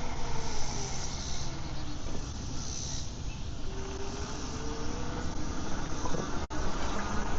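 Wind and riding noise from an e-bike rolling along a paved trail, with insects buzzing in a high band during the first few seconds. There is a brief dropout about six and a half seconds in.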